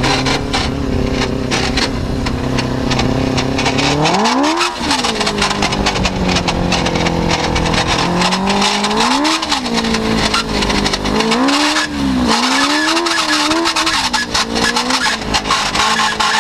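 Suzuki RF600 inline-four motorcycle engine driving an off-road buggy, heard from the driver's seat: running steadily, then revving sharply about four seconds in and rising and falling in several quick surges later on. A constant crackling runs over it.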